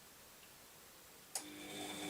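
Washing machine clicking on with one sharp click about a second in, then starting to run with a steady mechanical hum that grows louder toward the end.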